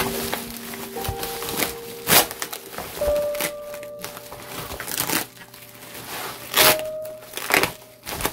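Bubble wrap crinkling as hands handle wrapped resin miniature rocks, with louder crinkles about two seconds in and twice near the end. Background music with held notes plays underneath.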